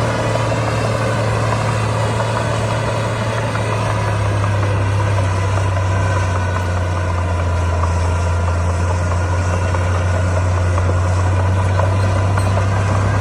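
Komatsu D41P bulldozer's diesel engine running steadily, its pitch dropping slightly about five seconds in and rising again near the end.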